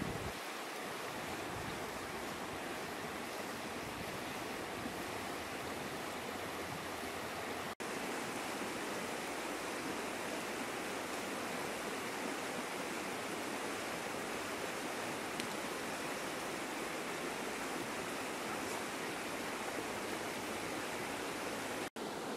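Steady rush of river water running over rapids, cutting out for an instant twice.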